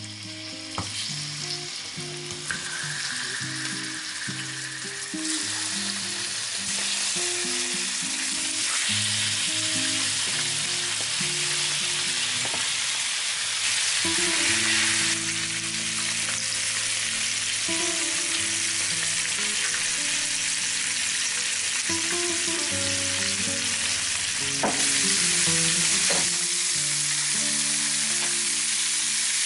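Raw chicken pieces sizzling in hot oil in a stainless steel frying pan, the sizzle growing louder as more pieces go in, with a few light clicks as they are placed and turned. Soft background music plays underneath.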